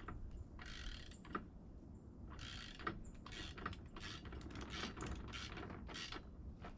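Hand wrench tightening a bolt on a miter saw stand's wheel axle: short metallic rasping clicks, one with each stroke, a few at first, then about two a second from roughly two seconds in.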